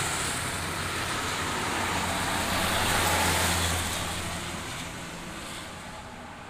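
Intercity coach passing close on a highway: engine drone and tyre noise grow to a peak about three seconds in, then fade as it draws away.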